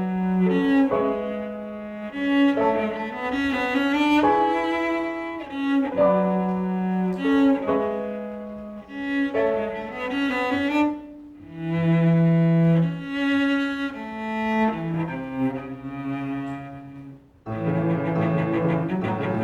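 Live instrumental music from a student ensemble: a melody of distinct held notes over a lower line. The music breaks off briefly near the end, then a fuller, denser passage begins.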